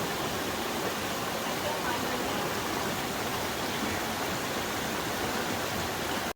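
Waterfall on a mountain stream, water rushing as a steady, even hiss that cuts off sharply at the end.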